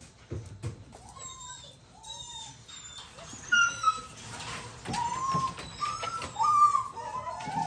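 Beagles whining and yelping, a string of short high-pitched calls that get louder and more frequent about halfway through, with a couple of knocks near the start.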